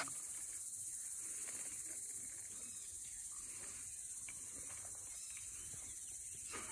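Steady high-pitched insect chorus, a constant even buzz.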